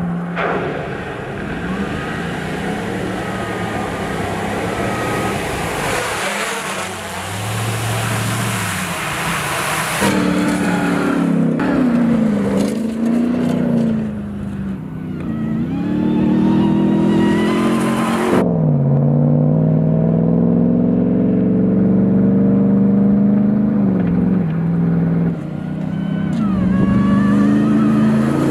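Ram 1500 TRX's supercharged 6.2-litre V8 revving hard under off-road driving, its note climbing and dropping several times. A rushing noise lies over the engine for the first half and cuts off suddenly, leaving the engine note clear.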